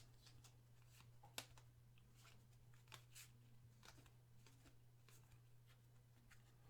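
Near silence with faint clicks and light rustles of trading cards being handled and slid one past another, the sharpest tick about a second and a half in, over a steady low hum.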